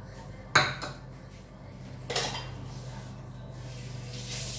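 Two sharp clinks of kitchen dishes and metal utensils about a second and a half apart, the first the louder, the second ringing briefly. A soft hiss builds near the end over a steady low hum.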